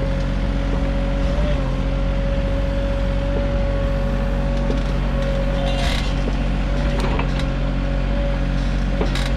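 Sany SY35U mini excavator running steadily, its diesel engine humming under a constant whine, with occasional clicks and creaks from the working machine.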